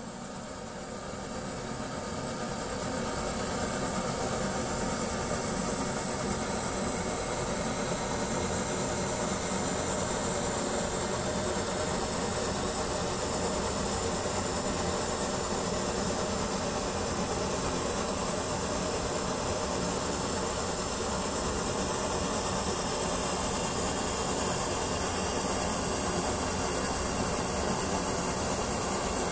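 Brass kerosene pressure stove burning, its burner giving a steady rushing hiss that swells over the first few seconds and then holds even.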